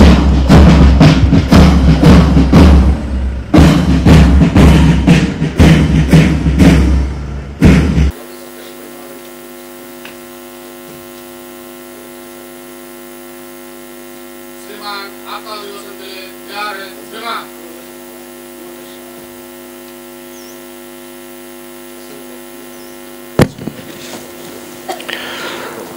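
School marching band's drums beating out a rhythm, cutting off abruptly about eight seconds in. After that a steady electrical mains hum, with faint voices briefly in the middle and a single click near the end.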